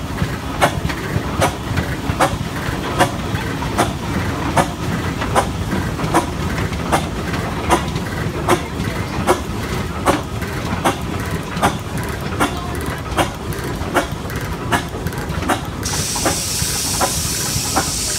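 Fairbanks-Morse antique tractor engine running slowly, firing in even, sharp beats about once every 0.8 seconds over a steady low rumble. Near the end a high hiss joins for about two seconds.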